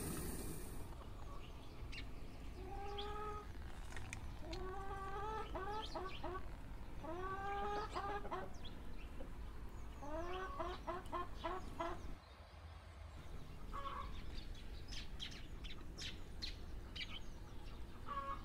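Bird calls: short rising calls repeated in quick runs of three to six, from about three to eleven seconds in, followed by a few light clicks near the end.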